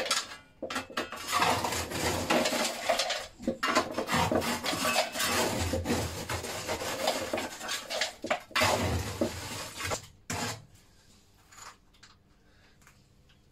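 Metal shovel scraping and rattling ash out of a steam engine's ash pan: repeated rough metal-on-metal scrapes, stopping about ten seconds in, followed by a few faint knocks.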